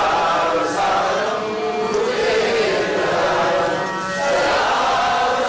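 Many voices chanting a devotional aarti hymn together in unison, in a steady sung line.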